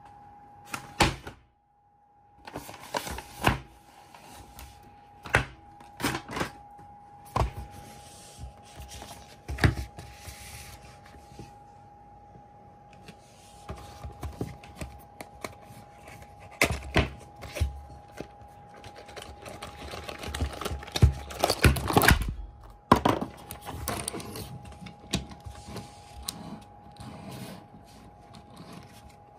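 Toy train packaging being handled and opened: cardboard box and plastic tray tapped, pulled and rubbed, with scattered clicks and knocks and a louder stretch of rustling about two-thirds through as the wooden subway car comes out. A faint steady tone runs underneath.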